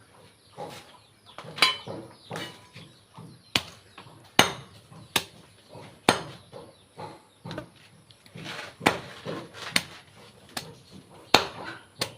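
Chopping on a cutting board: a run of sharp knocks at roughly one a second, some much harder than others.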